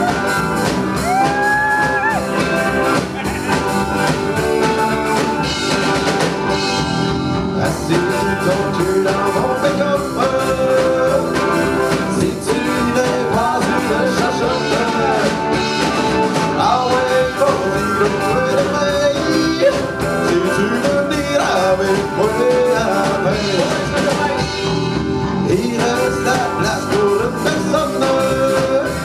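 Live band playing a country-flavoured rock song: electric bass, guitars and drums, with lead vocals sung into a microphone.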